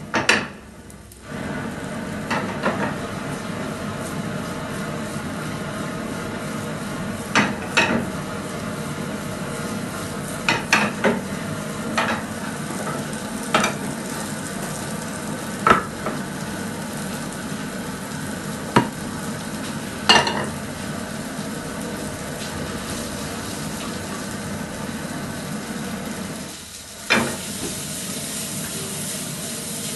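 Eggs and vegetables sizzling steadily in frying pans over gas burners, with sharp metal clanks every few seconds as pans are tossed and knocked against the stove.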